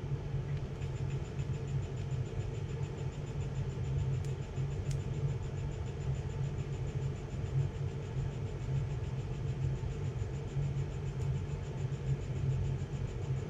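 Handheld 3D pen's filament-feed motor running with a steady low drone as it pushes plastic filament through the heated nozzle.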